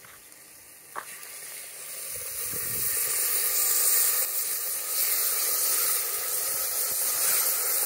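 Beef, onions and tomato paste sizzling in a hot cast-iron Dutch oven over a fire, being roasted brown. The sizzle builds over the first few seconds to a loud, steady hiss.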